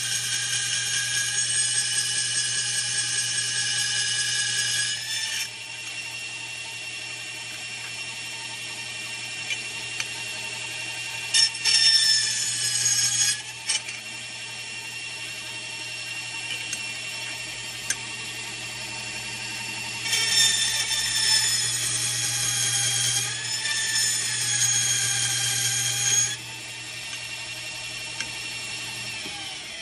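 Mini bandsaw running with a steady whine as its blade saws into silverware handles, rough-cutting the pegs. Three times the sound gets louder and the whine sags briefly in pitch as the blade bites into the metal, about at the start, around twelve seconds in, and from about twenty to twenty-six seconds in.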